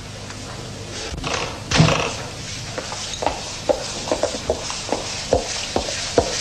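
A front door pushed shut with a single loud thud about two seconds in. Then high-heeled shoes click in steady steps, about two to three a second.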